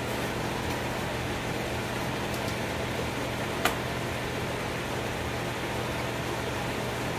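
Steady hum with a hiss of moving air from a running fan-type appliance, with one sharp click about halfway through.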